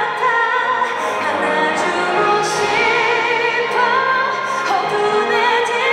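A woman singing a slow ballad into a microphone, with long held notes that waver in vibrato, over an orchestra's strings.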